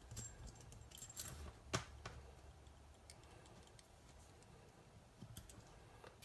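Faint clicks and light metallic clinks of small parts being handled, with one sharper click a little under two seconds in, over a low steady hum.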